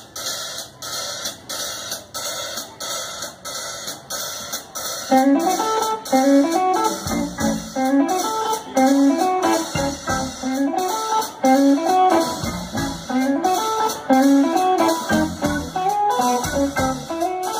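Live band playing amplified music: a steady drum beat, joined about five seconds in by a repeating electric guitar riff that makes it louder.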